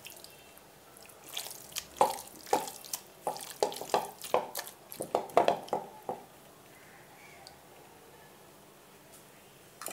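A hand squeezing and mixing small raw meat pieces in a wet, oily marinade in a metal pan: a run of quick wet squelches for about five seconds, which stops a little past halfway.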